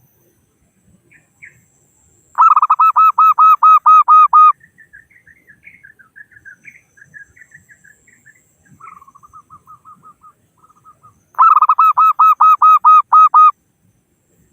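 Zebra dove (perkutut) calling: two loud runs of about a dozen quick, evenly spaced cooing notes, each lasting about two seconds, several seconds apart. Fainter, higher chirping notes fill the gap between them.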